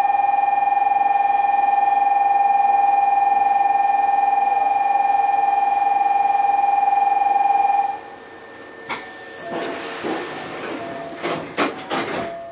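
Station departure signal: a loud, steady electronic tone that stops about eight seconds in, just after the announcement that the train is about to depart. A hiss of air and several clunks follow as the train's doors close.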